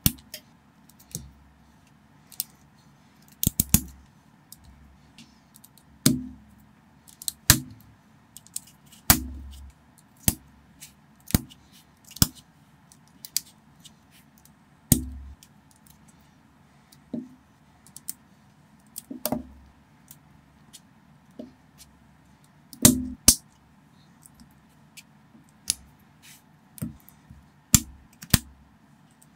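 Plastic Lego bricks clicking and snapping together as small parts are pressed on and adjusted by hand: irregular clicks every second or so, with a few louder snaps.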